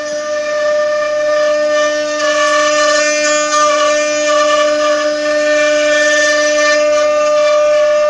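Multi-spindle 4-axis CNC wood router's spindle motors whining at one steady pitch while the bits carve wooden legs, with a hiss of cutting that swells and fades.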